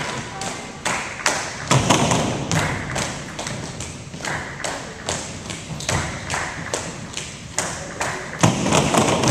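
Tinikling poles knocked together and tapped on their base poles in a steady beat, about three knocks a second, with feet landing on a wooden gym floor between the poles.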